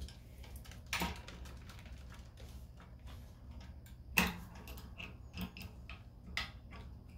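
Scattered clicks and light knocks from opening a home-built rosin press and handling the parchment around the pressed puck, two louder ones about one and four seconds in, over a low steady hum.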